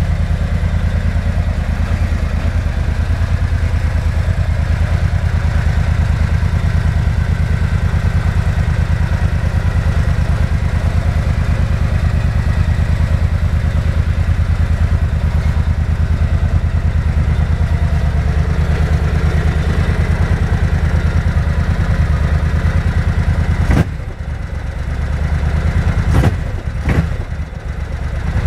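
A Suzuki cruiser motorcycle's V-twin engine idling steadily on a 20-degree day, running smoothly in the cold. About 24 seconds in the sound drops suddenly, with a few knocks near the end.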